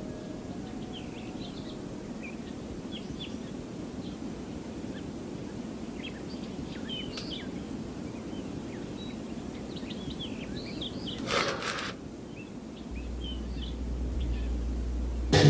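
Small birds chirping in short scattered calls over a steady background hiss. A brief rushing noise comes about eleven seconds in, and a low rumble builds near the end.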